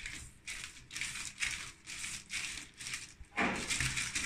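Wooden rolling pin rolling cookie dough out on baking paper: rhythmic rustling strokes, about two a second, with a louder, fuller stroke about three and a half seconds in.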